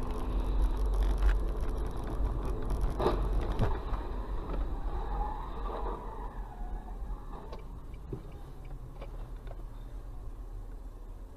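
Car driving on a wet road, heard from inside the cabin: a steady low rumble of engine and road noise, with a few sharp clicks or knocks about three to four seconds in. It grows quieter in the second half.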